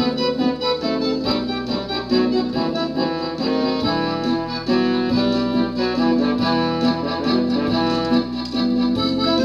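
Electronic keyboard music in waltz time: sustained chords with accordion-like and string-like voices over a bass line that changes every second or so.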